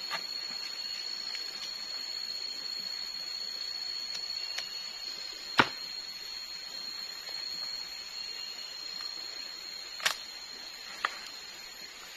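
A machete chopping into a coconut palm heart, a few sharp knocks, the loudest about halfway through and two more near the end. Under it runs a steady high insect drone.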